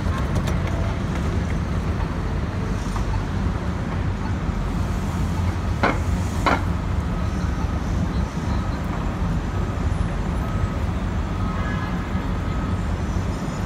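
Busy city street ambience: a steady rumble of traffic with a murmur of passers-by. Two sharp clicks about six seconds in, half a second apart.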